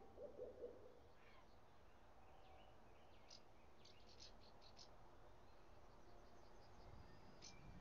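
Faint birds chirping in near quiet: a quick run of short high chirps in the middle and another near the end, with a brief lower call about half a second in, over a soft low outdoor rumble.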